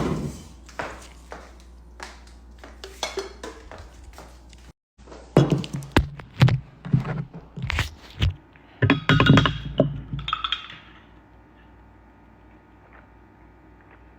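Kitchen utensils being handled: a series of knocks and clinks of a cup, spoon and containers, some ringing briefly. After about eleven seconds only a low steady hum remains.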